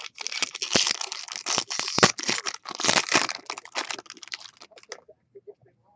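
A 2016 Bowman Chrome baseball card pack's wrapper crinkling as it is torn open and handled: a dense run of crackles that dies away about five seconds in.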